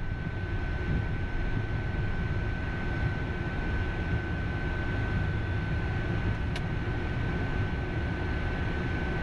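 Cockpit sound of an Embraer Phenom 300's twin Pratt & Whitney Canada PW535E turbofans at taxi idle: a steady engine hum over a low rumble, with a thin steady high whine. A single sharp click about six and a half seconds in.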